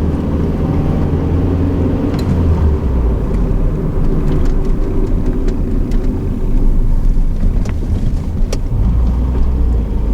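A 1989 Honda Accord's four-cylinder engine running while driving, heard from inside the car. Its note drops about three seconds in and changes again near the end, as gears are shifted with a rev-match, and a few sharp clicks come through.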